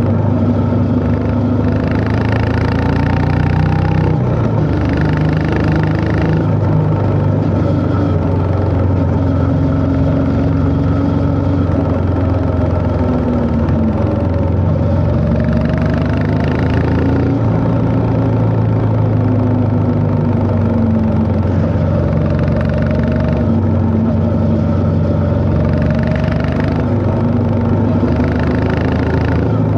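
Honda CB350 H'ness's single-cylinder engine running on the move, its pitch rising and falling again and again as the throttle opens and closes, with short stretches of harder acceleration.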